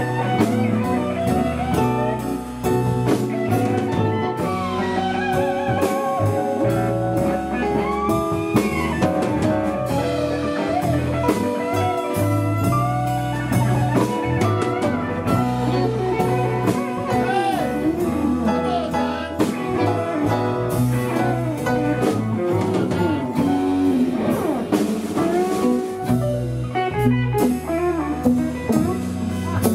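Live blues band playing a steady groove: lead guitar with bent notes over bass and drum kit.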